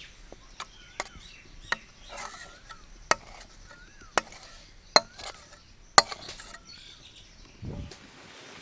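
A metal spoon knocking and scraping against a metal cooking pan while paneer curry is scraped out into a steel bowl: about seven sharp clicks, roughly one a second, stopping about six seconds in. Birds chirp in the background.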